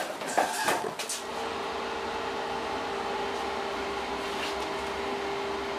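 A few handling clicks and knocks, then about a second in a welding machine switches on and hums steadily.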